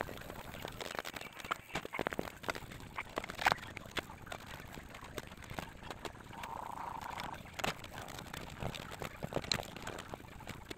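Scattered light taps and scrapes of a hand and a small brush working wet cement on a tree-stump-shaped bonsai pot, with a brief animal call about six seconds in.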